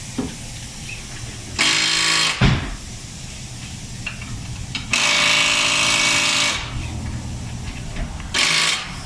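Pneumatic impact wrench rattling in three bursts, a short one, a longer one of about a second and a half, and a short one near the end, as it spins wheel lug nuts during a tire change. There is a single knock just after the first burst.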